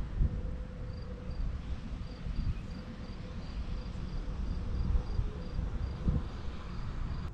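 Crickets chirping, a short high chirp repeating about three times a second, over a low rumble.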